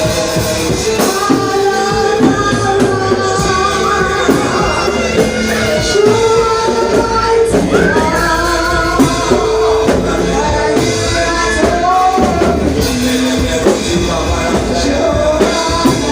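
Live church worship music: voices singing a gospel praise song over instrumental accompaniment, loud and unbroken.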